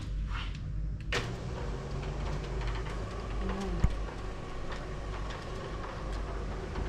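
Electric roller shutter motor running as the shutter rolls up, starting suddenly about a second in, with the slats ticking as they wind onto the roller. One sharp knock a little past halfway.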